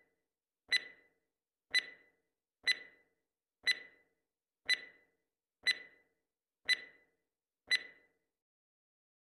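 Countdown timer ticking, one sharp clock-like tick with a short ring each second, eight times, stopping near the end.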